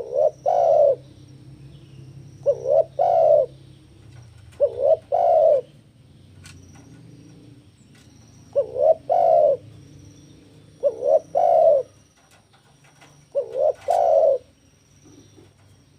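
Spotted dove (tekukur) cooing: six repeated phrases, each a short coo followed by a longer, fuller one, spaced a couple of seconds apart with one longer pause midway.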